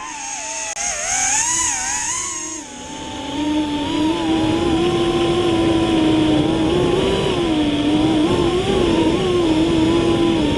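FPV quadcopter's brushless motors and propellers whining, the pitch wavering up and down with throttle. The whine is higher for the first two or three seconds, then drops to a lower, steadier pitch.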